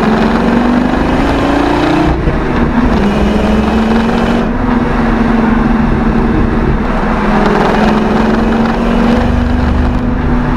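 Ford Triton 6.8 V10 engine heard from inside the truck's cab, revving up with rising pitch under acceleration for about two seconds. After a brief break, it pulls on at a steady pitch under load.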